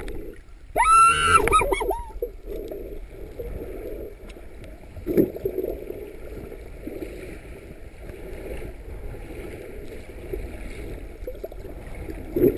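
Muffled underwater noise picked up through a camera's waterproof housing, with a brief burst of high, wavering pitched sounds about a second in and a couple of dull thuds later on.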